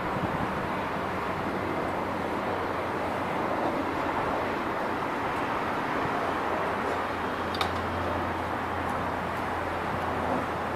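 NAS332 Super Puma twin-turbine military helicopter flying past at a distance: a steady rush of rotor and turbine noise with a low hum that grows a little stronger in the second half.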